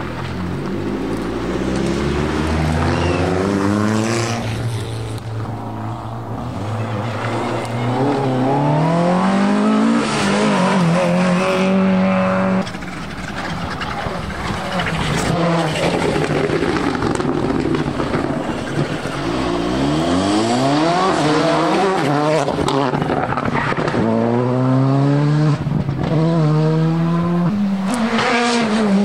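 Rally cars accelerating hard on a special stage, engines revving up steeply and dropping back at each gear change, again and again. The sound changes abruptly about twelve seconds in as the next car comes through.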